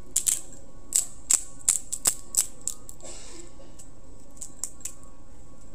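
Hand-twisted salt grinder clicking as it is turned and grinds salt: a quick run of about ten sharp clicks over the first three seconds, then a few fainter ones near the end.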